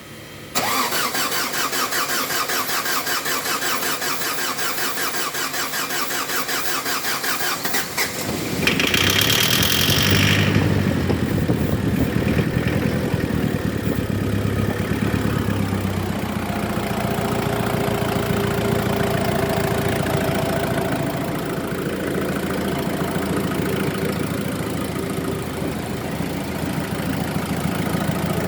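Mazda WL four-cylinder diesel engine cranking on the starter with a fast, even rhythm for about eight seconds, then firing, revving briefly and settling into a steady idle: a hard-starting diesel finally catching.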